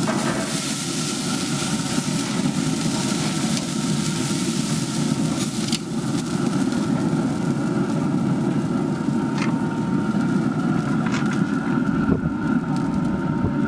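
Traeger pellet grill running with the steady whir of its fan. The large steak sizzles on the hot grate as tongs lift it off, and the tongs click on the grate a few times.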